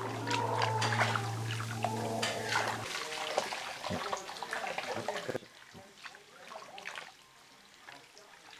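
Water running and splashing, with small knocks and clatter. A steady low hum stops about three seconds in, and a little after five seconds the sound drops abruptly to a much quieter trickle.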